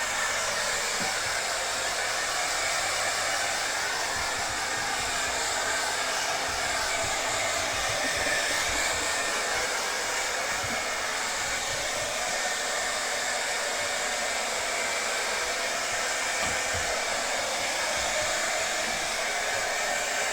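Blow dryer running steadily with an even rushing whoosh, drying a dog's wet coat after its bath.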